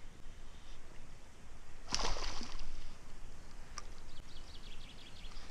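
A pike striking a topwater frog lure at the surface, a short splash about two seconds in, followed by a sharp click and faint rapid ticking.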